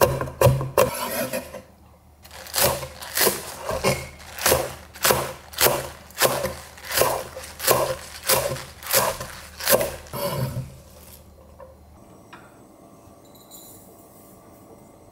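Kitchen knife chopping on a wooden cutting board at about two strokes a second, first mincing red chili, then after a short pause slicing green onions. The chopping stops about eleven seconds in, leaving only faint room tone.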